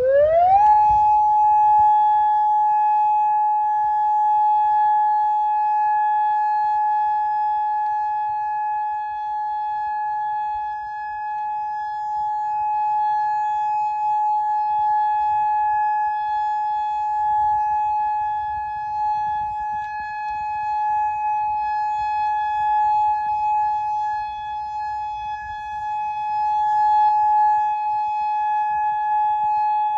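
Federal Signal Modulator electronic outdoor warning siren sounding a steady alert tone during a scheduled siren test. It sweeps up quickly in its first second, then holds one steady pitch with overtones.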